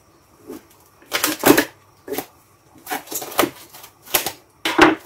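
Plastic cling film crackling and rustling in a series of short bursts as it is pulled from the roll and pressed over a salad bowl.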